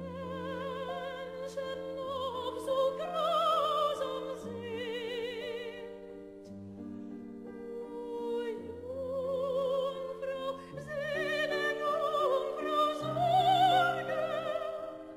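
Background music: an opera singer with a wide vibrato over sustained accompaniment chords, sung in two swelling phrases with a quieter dip midway.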